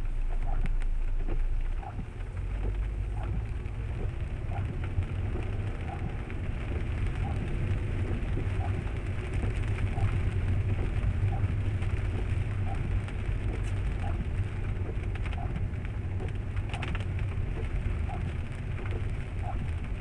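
Car driving in the rain, heard inside the cabin: a steady low road and engine rumble under rain hiss, with a short tick repeating about one and a half times a second.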